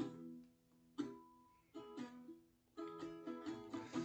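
Plucked string instrument playing the instrumental intro to a song, with notes and chords picked out about once a second and brief gaps between them.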